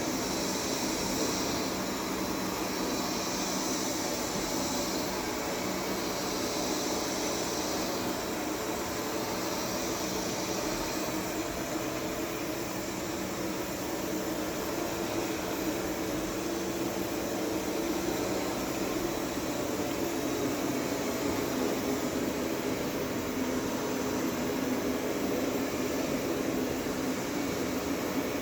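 Roemo Pro robot vacuum cleaner running, a steady whirring hum with no change in pitch.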